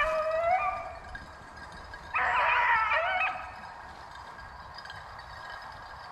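A pack of rabbit hounds baying as they run a rabbit. One drawn-out bay comes at the start, then several dogs give voice together about two seconds in.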